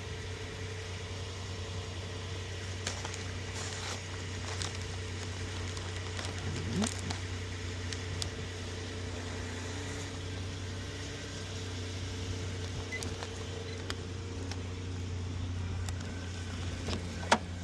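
Steady low hum of a car heard from inside the cabin: engine and road noise while driving, with a few light clicks.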